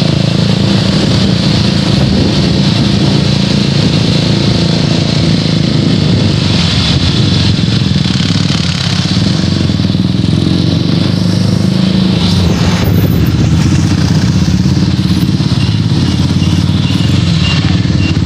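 Motorcycle engine running steadily while riding, heard from on the bike, with wind and road noise.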